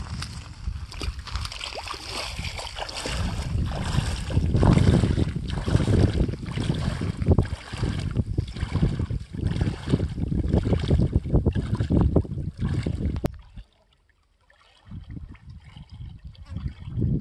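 Legs wading through shallow pond water, splashing irregularly with each step, with wind rumbling on the microphone. The sound breaks off sharply about thirteen seconds in, then quieter splashing resumes.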